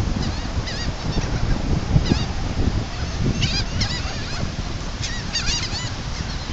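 Several seagulls calling in short, repeated squawks over a steady low rumble.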